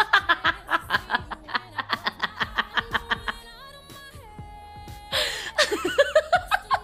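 Rapid high-pitched laughter, a fast run of short laughs for about three seconds, then a brief steady note and another burst of laughter near the end, over background music.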